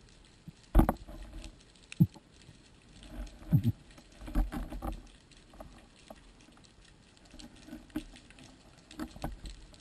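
Underwater sound picked up through the waterproof housing of a camera mounted on a speargun: scattered, irregular clicks and knocks with a few short low thuds and bursts of crackle.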